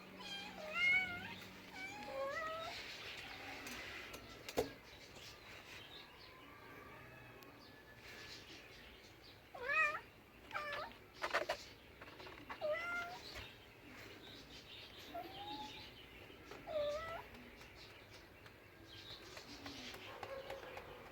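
A domestic cat meowing repeatedly, about ten short rising-and-falling meows in two flurries, with a quieter gap and a single knock in between.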